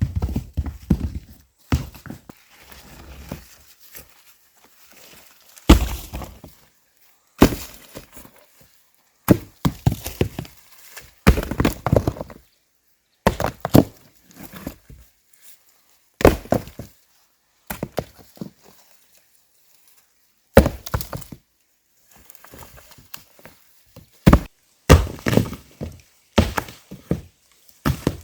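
Heavy strikes on wood, irregular, about one every second or two, some followed by quick smaller knocks, typical of an axe chopping logs for a cabin.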